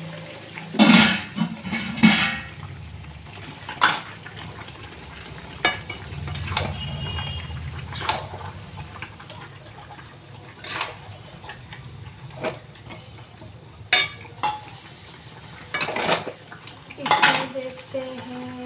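Steel lid lifted off a kadai with a ringing clank, then a long steel spatula stirring chicken curry in the pan, scraping and knocking against the metal every second or two.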